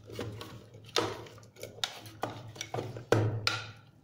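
Chopped onion being scooped by hand out of a plastic food-processor bowl: a string of about six knocks and scrapes against the bowl.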